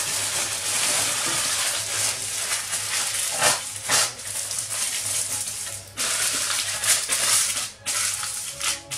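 Aluminium foil crinkling and crackling irregularly as it is rolled and squeezed by hand around an aubergine, over a faint low hum.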